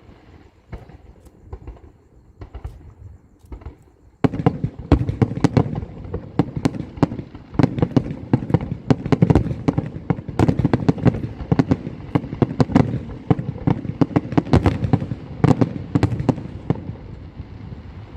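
Fireworks going off: scattered cracks at first, then about four seconds in a sudden, dense barrage of rapid bangs and crackling that keeps going.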